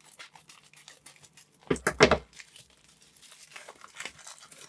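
Plastic packaging bag being cut open and handled, crinkling and rustling, with a louder burst of crackling about two seconds in.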